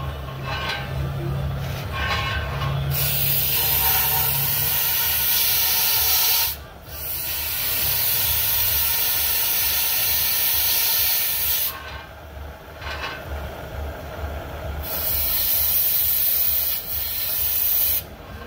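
Torch flame hissing in three long blasts, dropping away between them, as it is played over a two-stroke motorized-bike exhaust to burn off carbon buildup.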